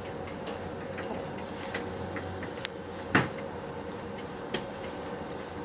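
Plastic dialysis blood tubing and its fittings being handled by gloved hands: a few sharp clicks and one louder knock a little past the middle, over a steady hum.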